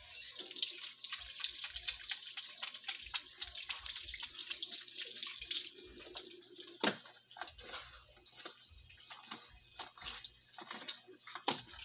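Small dogs eating, with dense, irregular wet smacking and crunching as they chew, and a couple of sharper cracks.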